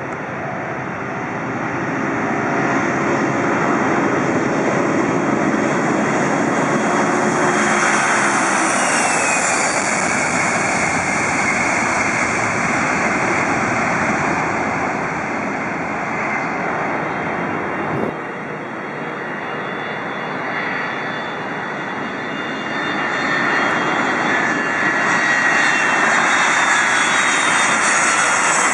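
Boeing 747SP jet engines at takeoff power as the airliner rolls and climbs away, growing louder over the first few seconds, with a falling whine as it passes about eight seconds in. After a sudden break about 18 seconds in, a Boeing 747 freighter's engines are heard on landing approach, building up again near the end.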